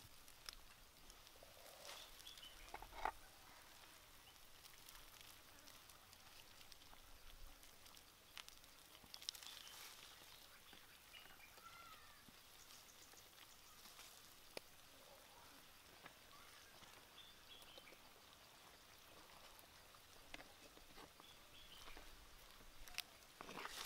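Near silence: faint outdoor background with scattered soft bird chirps and a few small ticks and taps.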